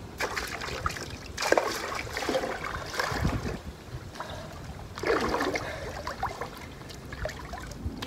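Shallow water in an inflatable pool splashing and sloshing as a person steps in and wades, in several uneven bursts, the loudest about one and a half seconds in.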